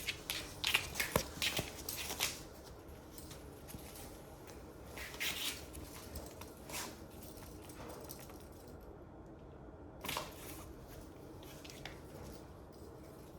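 A cat playing with a ribbon toy: scattered rustles and light scuffs, several quick ones in the first two seconds, then a few single ones spaced seconds apart.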